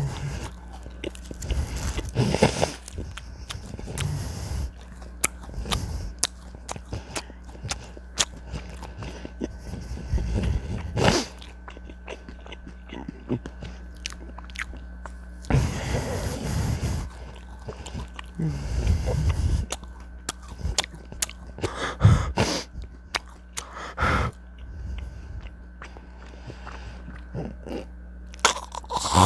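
Close-miked chewing and biting: wet mouth sounds and small clicks of someone eating, with louder bursts every few seconds.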